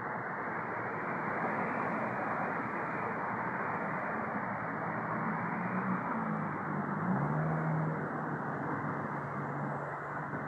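Steady road-traffic noise. A vehicle engine's hum comes through from about five seconds in and shifts in pitch about seven seconds in.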